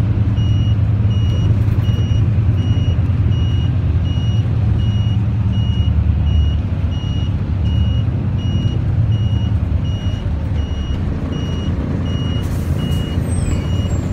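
Heard from inside a bus: the engine runs with a low rumble, and an electronic beeper sounds steadily, about three beeps every two seconds. A short hiss comes near the end.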